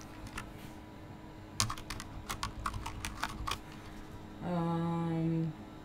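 Typing on a computer keyboard: a quick run of about a dozen keystrokes, followed about four seconds in by a steady low hum lasting about a second.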